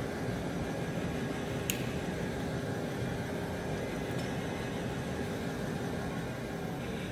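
Steady mechanical hum and fan-like whir of a running automated conveyor boat loader, with a faint steady tone. A short high click sounds just under two seconds in.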